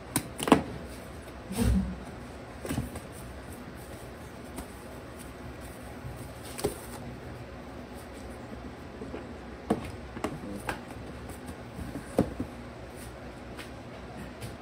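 Scattered knocks and taps, with a low thump about two seconds in, as puppies scramble about on newspaper in a plastic play pen, over a steady background hum.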